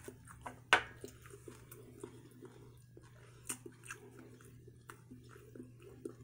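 Close-up eating sounds: a person chewing and biting into seafood boil, with wet mouth sounds and small scattered clicks over a steady low hum. A sharp click about a second in is the loudest sound.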